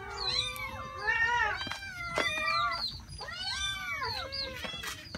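Several cats meowing at once, many overlapping rising-and-falling calls following each other with no let-up: hungry cats calling for food as it is laid out for them.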